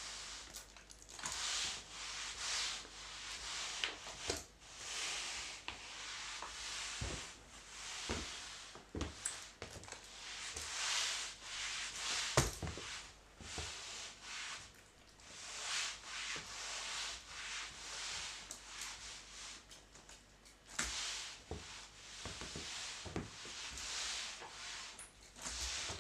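A mop being pushed back and forth over a hard floor, a rubbing swish about once a second, with scattered sharp clicks.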